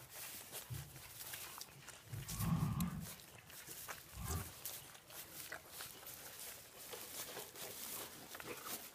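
Piglets grunting low, three short grunts with the loudest about two and a half seconds in, while they root and shuffle in straw, which crackles and rustles throughout.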